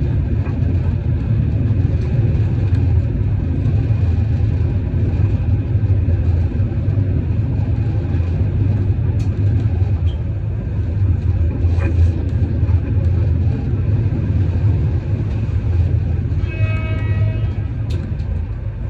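Steady low rumble of a moving vehicle. Near the end, a short pitched toot sounds for under a second.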